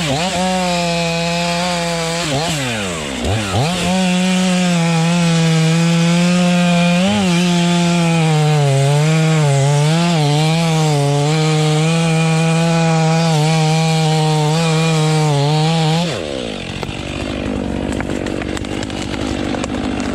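Two-stroke chainsaw running at full throttle as it cuts through wood, its pitch wavering as the chain bogs under load. About three seconds in, the revs drop sharply and climb back, and near the end they fall away suddenly, leaving a quieter rumble.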